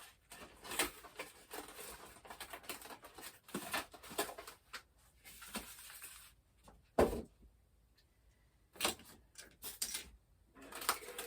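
Packaging being handled: rustling with many small clicks and knocks, a louder knock about seven seconds in, then a few sharp clicks after a short pause.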